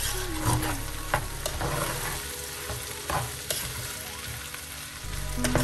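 A metal spoon stirring and scraping fried rice in a metal pot, with several sharp scrapes and knocks against the pot, while the rice sizzles as it fries.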